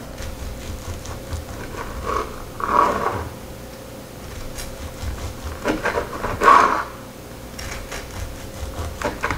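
Knife cutting down through the crisp crust of an oven-baked sweet rice cake on a wooden cutting board: three crunchy cuts, each ending with the blade meeting the board.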